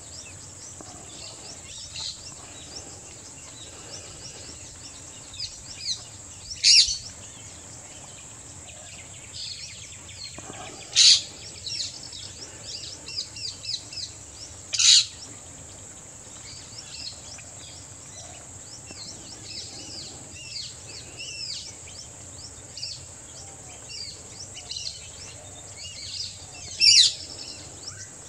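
Wild birds chirping and calling, with four much louder, sharp short calls spread through the stretch, the last near the end, over a steady high insect drone.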